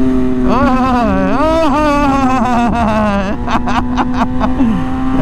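Kawasaki ZX-10R's inline-four engine revving up and dropping back as it is shifted through the gears. A quick string of sharp exhaust pops and crackles comes on the shifts, about three and a half seconds in.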